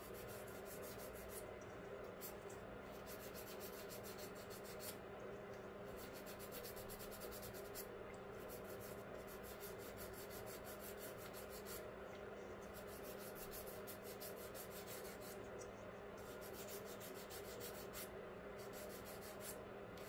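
A sanding stick rubbing along the seam of a plastic model car tire, a steady light scratching of small strokes. A faint steady hum sits underneath.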